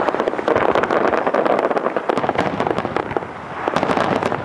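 Aerial fireworks display: a dense run of sharp bangs and crackles from bursting shells. It thins briefly about three seconds in, then builds again.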